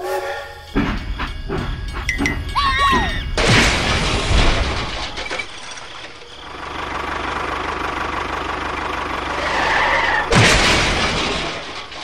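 Train-wreck sound effects: a short sliding whistle, then a loud crash about three and a half seconds in, followed by a long steady hiss, and a second crash near the end.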